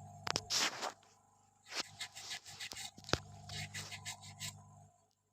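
Scraping and scratching on a phone circuit board as the charging-jack solder pads are cleaned, in short bursts with a couple of sharp clicks. Under it runs a steady low hum that stops near the end.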